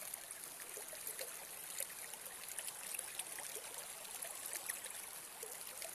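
Shallow water from a karst resurgence spring running over gravel: a steady trickling and babbling with small gurgles.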